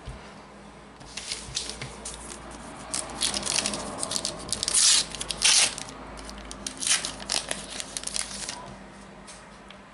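The wrapper of a Panini Adrenalyn XL trading card pack is being torn open and crinkled. It makes a series of crackly rips and rustles, and the loudest tearing comes about five seconds in.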